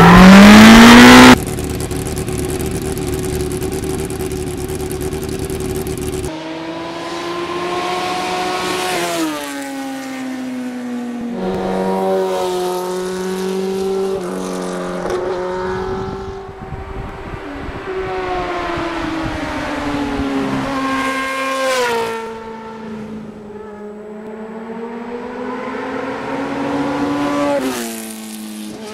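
A loud rising whoosh in the first second, then steady rushing noise. From about six seconds in, a motorcycle engine revs, its pitch climbing and dropping again and again as the bike accelerates and shifts.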